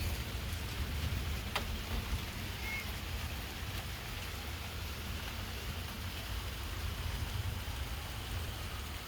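Heavy rain pouring steadily, with a low rumble underneath and a single sharp click about one and a half seconds in.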